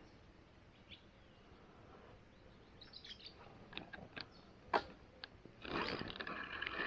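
Faint bird chirps, then a few sharp clicks and a short noisy burst near the end as a hooked roach is brought in on a float rod.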